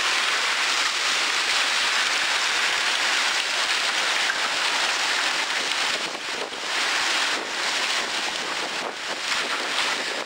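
Heavy wind-driven rain mixed with hail pouring down in a severe thunderstorm: a loud, steady rush, with wind buffeting the microphone. The rush eases a little and grows gustier after about six seconds.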